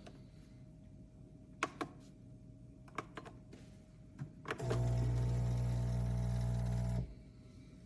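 A few light clicks, then a small electric pump in a single-serve coffee maker buzzing steadily for about two and a half seconds before cutting off sharply.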